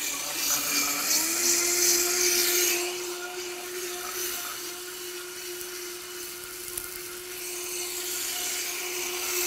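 Countertop blender motor running with a steady whine that steps up slightly in pitch about a second in, with a hissy layer over the first few seconds.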